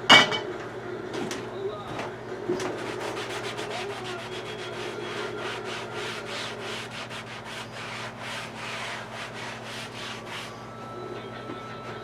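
Hand sanding: a run of quick back-and-forth rubbing strokes, opening with a sharp knock and stopping about ten and a half seconds in.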